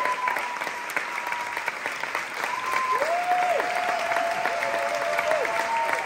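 A theatre audience applauding the cast's curtain call, a dense, steady clapping.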